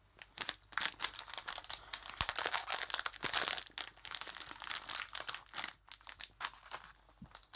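Plastic snack bag crinkling as it is opened by hand and a sweet taken out: a dense run of crackles from shortly after the start until near the end.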